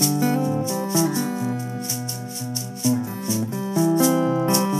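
Acoustic guitar and ukulele strummed together in a steady rhythm, playing chords with no singing.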